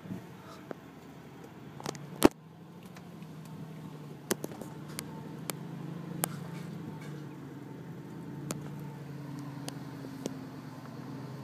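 2014 Range Rover Sport's engine running at low speed as the car creeps forward, heard from inside the car, with scattered sharp clicks and knocks, the loudest about two seconds in.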